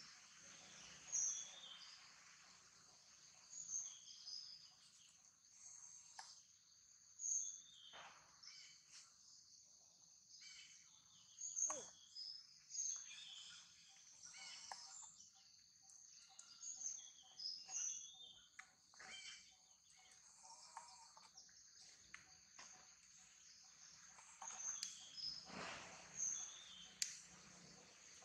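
Steady high-pitched chirring of insects such as crickets or cicadas, dotted with short high chirps, and a number of brief louder sounds scattered through it.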